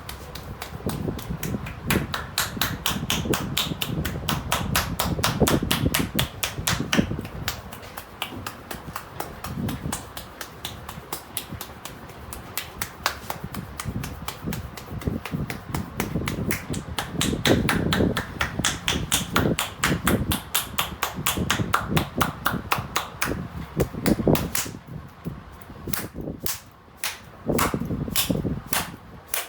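Rapid, rhythmic hand slaps and taps of a percussive massage by a barber, several strikes a second, with fewer, sharper claps near the end.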